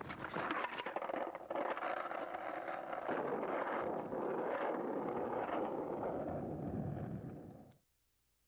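Skateboard wheels rolling steadily over pavement, with a few clicks at the start. The rolling noise cuts off suddenly near the end.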